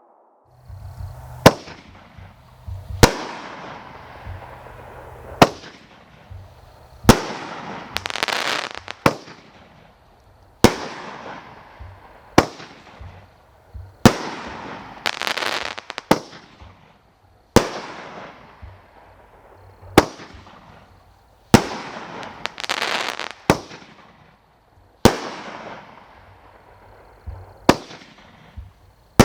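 World Class "One Bad Mother" 16-shot firework cake firing, a sharp bang about every two seconds, each dying away, several followed by crackling.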